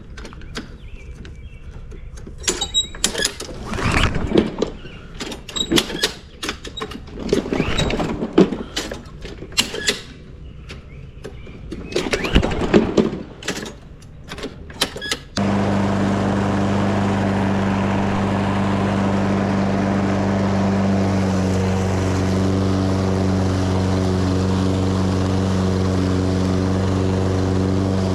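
Irregular knocks, clatter and rustling of things being handled, then, about halfway through, an abrupt cut to a lawn mower engine running steadily.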